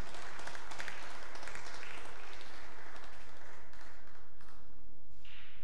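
Audience applauding with scattered hand claps that thin out and die away over the first three or four seconds.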